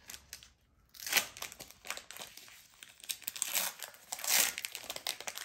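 Foil Pokémon TCG booster pack wrapper crinkling and tearing as it is ripped open by hand, in short bursts starting about a second in.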